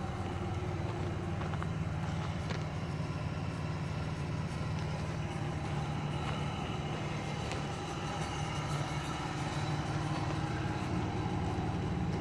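Chevrolet Camaro RS 3.8-litre V6 engine running at a steady speed, with a misfire.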